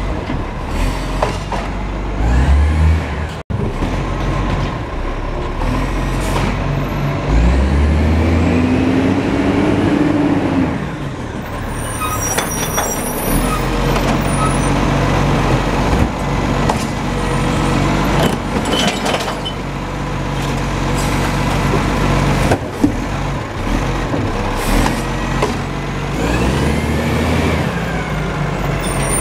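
Iveco Acco side-loader garbage truck's diesel engine running, revving up twice as its hydraulic arm lifts and tips wheelie bins into the hopper, with clunks of the bins and arm.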